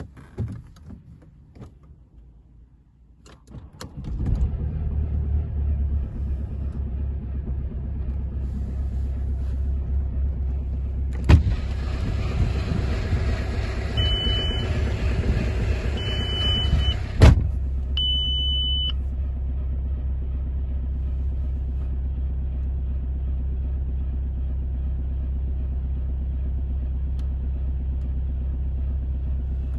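Audi A6 C6 2.0 TDI four-cylinder diesel starting from cold after a few faint clicks, then idling with a steady low rumble: the cold-start run in which the owner hears an odd noise and has had an oil pressure warning. About seven seconds after the start the sound turns louder and brighter for roughly six seconds, bracketed by a knock at each end, and three short high beeps sound.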